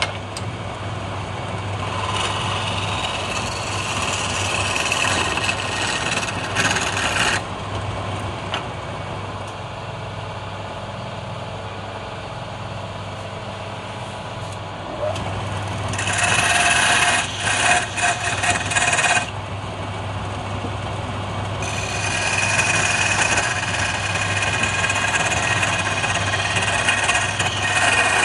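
Wood lathe running with a steady motor hum while a hand chisel cuts the spinning palm-wood blank, giving a hissing scrape in three spells, the last the longest.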